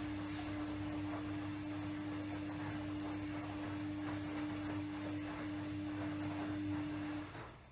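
A steady hum with one held tone, which cuts off suddenly near the end.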